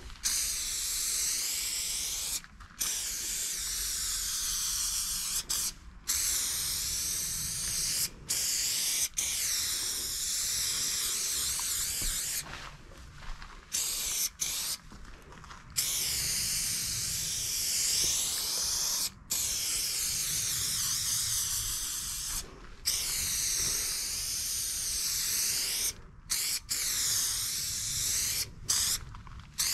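Aerosol spray paint can (Molotow Burner silver chrome) spraying in long hissing bursts of a few seconds each, stopping abruptly for short breaks about ten times as the nozzle is released and pressed again. The hiss wavers slightly in tone as the can sweeps across the panel.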